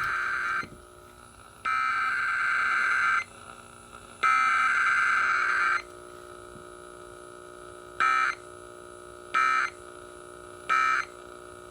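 Emergency Alert System SAME data bursts, harsh buzzy tone bursts: the end of one long burst and two more of about a second and a half each, a second apart. Then come three short bursts about a second and a half apart, the end-of-message code.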